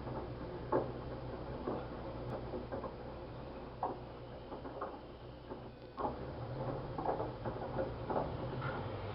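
LG washing machine on its wash cycle: the motor hums steadily while the drum turns a heavy, wet double blanket, with irregular sloshes and soft knocks of water and fabric. The hum grows louder about two-thirds of the way through.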